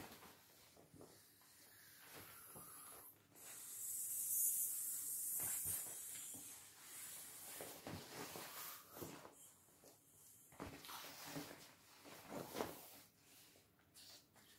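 Breath blown by mouth into the valve of an inflatable vinyl paddling pool: puffs of air with a hiss, the longest and loudest about four seconds in, and shorter ones later.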